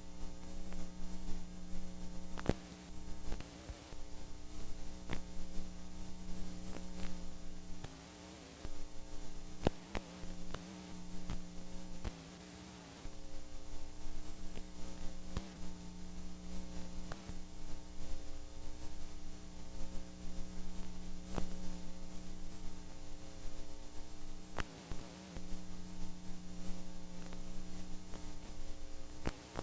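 Steady electrical hum with hiss and scattered crackling clicks from the playback of blank videotape, a few short dips in level along the way.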